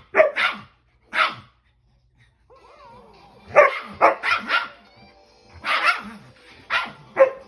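A dog barking in short, sharp barks: a few at the start, a pause of about a second, then a quick run of four and several more toward the end.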